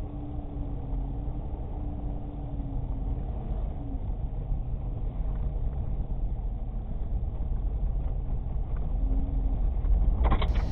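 Engine of the small plow vehicle running steadily while it pushes a homemade snow plow through deep snow, a low rumble with a wavering hum. A few sharp knocks come near the end.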